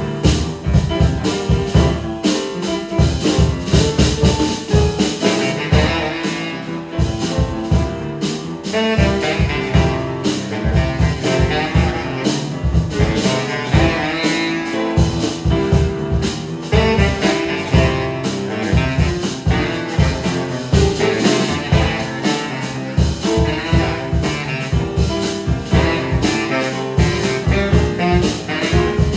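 Live jazz played by baritone saxophone, upright piano and drum kit. The piano and drums run under the whole stretch, and the baritone saxophone comes in a few seconds in.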